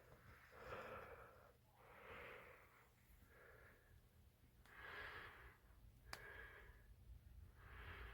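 Near silence with a person's faint breathing, a soft breath about every second and a half, and a small click about six seconds in.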